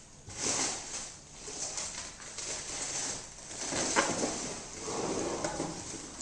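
Plastic packaging rustling and crinkling as a delivery box is unpacked by hand, with a sharp knock about four seconds in.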